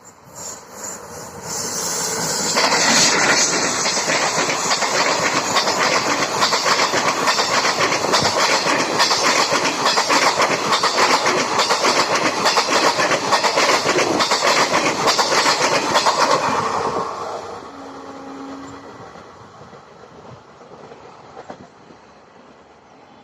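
An electric-hauled train passing close by at speed, its wheels clattering over the rail joints. The sound builds about two seconds in, stays loud for about fifteen seconds, then fades away as the train recedes.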